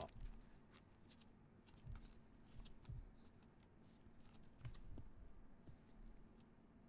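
Near silence with faint handling noise: scattered small clicks and light rustles as a trading card and a clear plastic card holder are handled.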